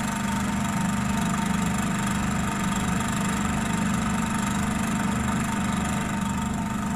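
Portable refrigerant recovery machine's compressor running steadily with an even hum, set to recover and pulling refrigerant out of a refrigeration system.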